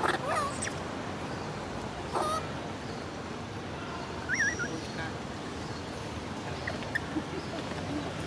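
Three short calls that bend in pitch, from young long-tailed macaques: one near the start, one about two seconds in and one about four and a half seconds in, over a steady outdoor hiss.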